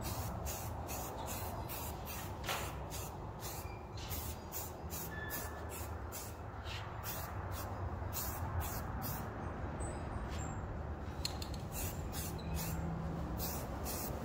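Blast cabinet in use: a steady hiss of compressed air and abrasive from the blast gun over a low hum.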